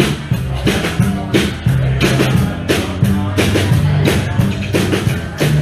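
A live blues-rock band playing, the drum kit keeping a steady beat over a moving bass line.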